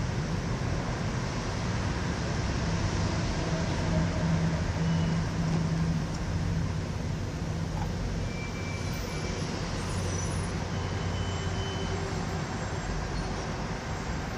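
Steady rumble of vehicles on the move, with a low hum that swells a few seconds in and a few faint short high tones.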